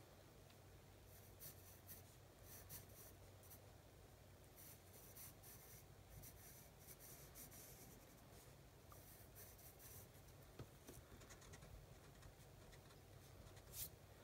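Faint scratching of a pencil sketching on paper, in short strokes with pauses between them.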